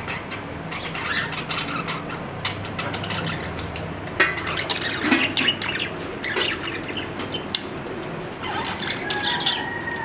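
Budgerigars chattering and chirping, mixed with many sharp little clicks, louder bursts of calls about four to six seconds in and a short whistled note near the end.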